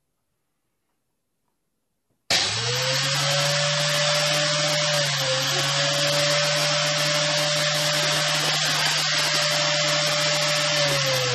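An electric motor starts suddenly about two seconds in and runs steadily with a whine over a low hum. Near the end its pitch falls as it winds down.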